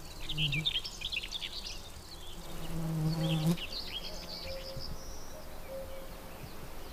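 Forest ambience: small birds chirping in quick, high bursts, and a flying insect buzzing close by for about a second around the middle, the buzz cutting off sharply.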